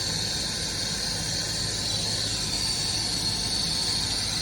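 Handheld gas torch burning with a steady hiss, its flame held on a pipe joint to heat it for soldering.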